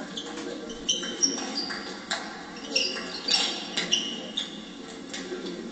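Sports shoes squeaking on a sports-hall floor: several short, high chirps over the hall's steady background murmur, with a few sharp ticks among them.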